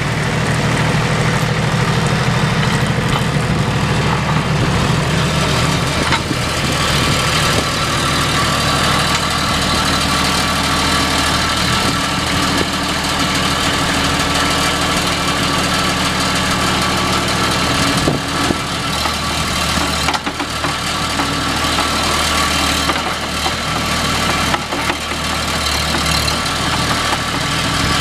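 Loader backhoe's diesel engine running steadily, its low note shifting a couple of times.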